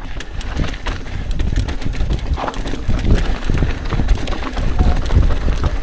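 Mountain bike rolling over a rough dirt trail: many quick clicks and knocks of the bike rattling over bumps, over a heavy, uneven low rumble of wind on the microphone.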